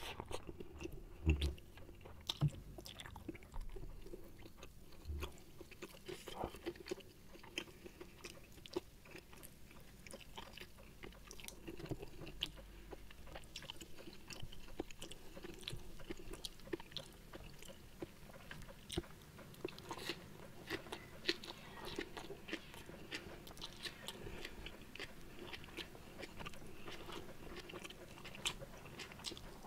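Close-up chewing of a man eating rice by hand, with many small clicks and crunches.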